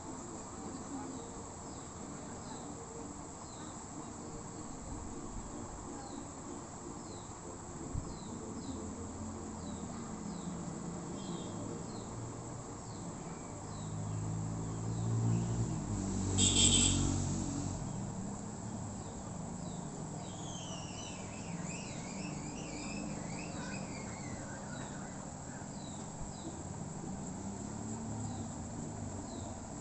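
Background ambience of short, high animal chirps repeating about once a second, with a run of falling chirps about twenty seconds in. A louder low sound swells about fourteen seconds in and fades by eighteen, with a brief sharp high burst at its peak.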